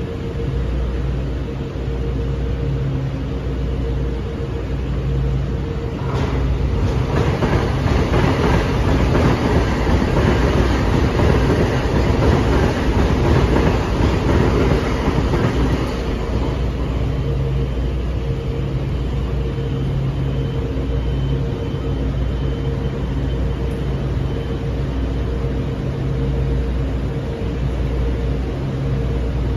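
Metro-North M8 electric multiple-unit train standing at a station platform, its onboard equipment humming steadily with a low drone and a steady mid tone. About six seconds in, a louder rushing rumble rises and fades away again about ten seconds later.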